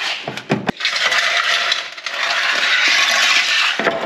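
Rusted sheet steel of a Land Rover Series IIA's rotten floor being broken away: a few sharp cracks, then a long crunching scrape.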